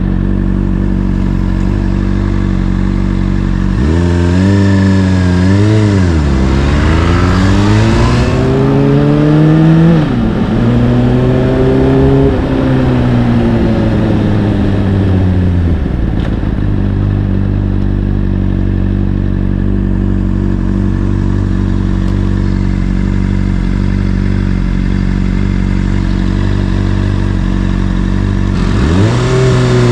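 Honda CBR600RR's inline-four through an Akrapovic exhaust, idling steadily, then revving up as the bike pulls away and shifting up twice, the revs dropping sharply at each shift. The revs then fall away and settle back to a steady idle, and rise again as it pulls away near the end.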